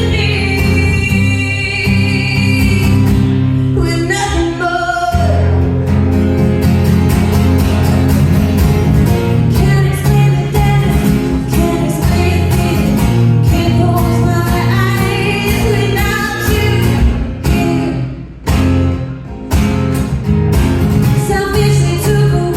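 A woman singing a song live with guitar accompaniment. The music dips briefly about eighteen seconds in.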